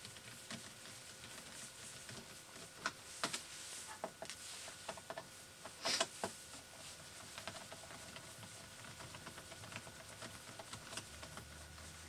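Faint, scattered clicks and light taps of a small screwdriver backing out the keyboard screws on the underside of an IBM ThinkPad T40 laptop, as the screws and plastic case are handled. The sharpest clicks come about three and six seconds in.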